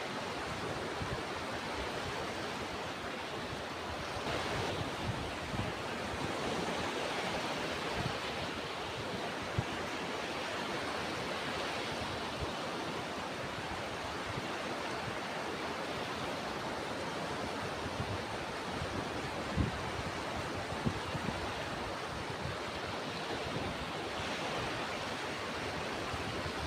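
Ocean surf washing steadily, with a few brief low buffets of wind on the microphone.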